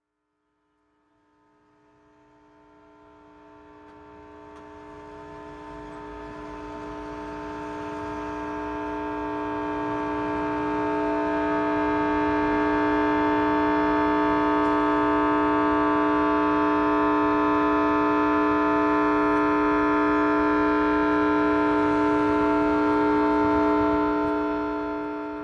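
A loud, steady tone held at one unchanging pitch, rich in overtones. It swells up over the first dozen seconds, holds level, then dips near the end.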